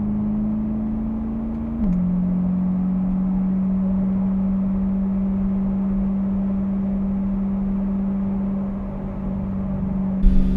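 Corvette C8 Stingray's 6.2-litre V8 with Flowmaster cat-back exhaust, driving under steady light load at a constant drone. About two seconds in, the pitch climbs slightly and then drops sharply, as in an upshift. Near the end the sound turns abruptly louder and rougher.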